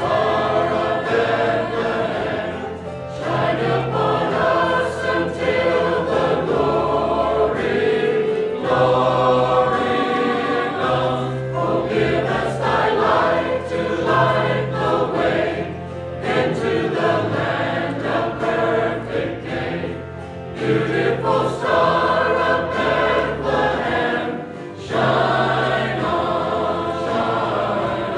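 Church chancel choir singing a cantata number in several parts, in phrases with brief breaks between them.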